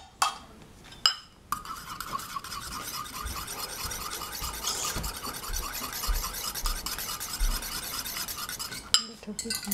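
Wire balloon whisk beating paprika into thick homemade mayonnaise in a bowl: fast, even strokes of the wires scraping round the bowl, starting about a second and a half in after two short knocks.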